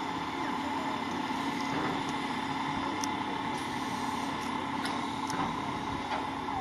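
Turntable slowly rotating with the C61 20 steam locomotive aboard: a steady mechanical hum holding a couple of even tones, with a few faint ticks.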